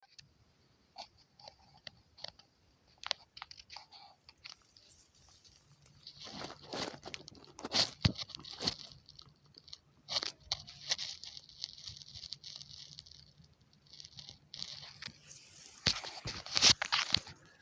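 Foxes making irregular crunching, tearing and rustling noises in bursts, with sharp clicks, loudest around eight seconds in and again near the end.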